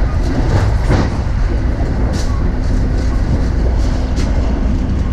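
Electric passenger train running along the line, heard from inside the car: a steady low rumble of wheels on rails, with a few faint sharp ticks.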